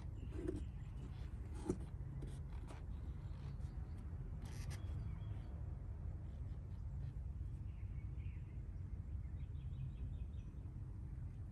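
Outdoor ambience: a steady low rumble with a few small sharp clicks in the first half and faint bird chirps near the end.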